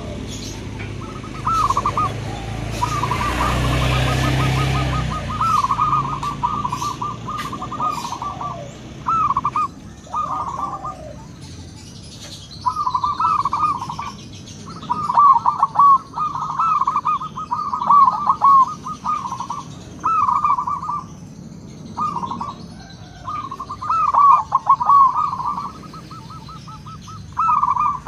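Zebra doves (perkutut) cooing: repeated bouts of quick, rippling coo notes, each phrase a second or two long with short pauses between. A brief low rumble sounds a few seconds in.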